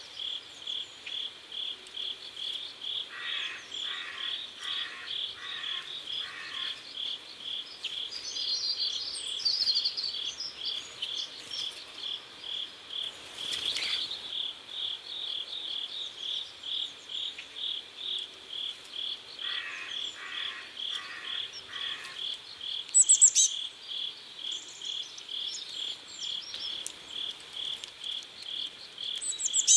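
Crickets chirping in a steady, even pulse of about three chirps a second. Twice a lower rasping call of four pulses joins in, and scattered short high bird chirps come through, the loudest about 23 seconds in.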